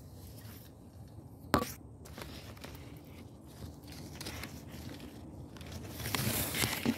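Guava leaves and twigs rustling and brushing close to the microphone as the camera is pushed through the branches, with a single sharp click about a second and a half in and a louder stretch of rustling near the end.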